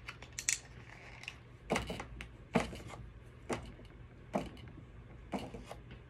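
Sharp clicks and taps of small plastic cosmetic packaging being handled and turned over, about seven scattered through the few seconds, over a low steady hum.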